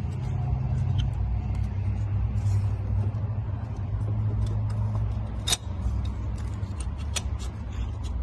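Light clicks and knocks of a new diesel fuel filter and its plastic housing being pushed down into the mount, with one sharp click about five and a half seconds in, over a steady low hum.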